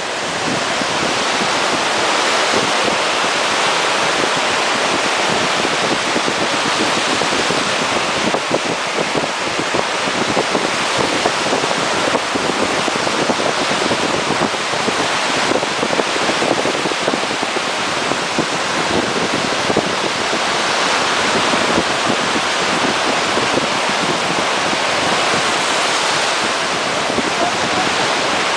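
Steady loud rush of wind and water, with wind buffeting the microphone, as on a jet ski moving at speed.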